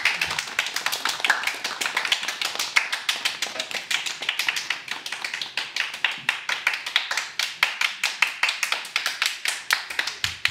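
Performers' body percussion: a dense run of rapid, rhythmic hand claps and taps, several sharp clicks a second.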